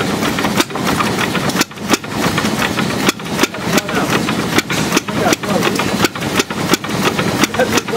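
Late-1920s Buda railcar (speeder) engine, an air-cooled two-cylinder, hand-started by spinning its flywheel and running at a very low idle with an uneven chug.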